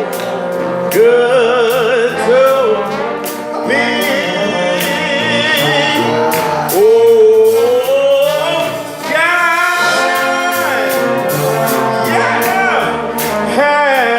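Live gospel music: a lead voice sings long, wavering held notes and quick runs over band accompaniment with steady percussion strokes.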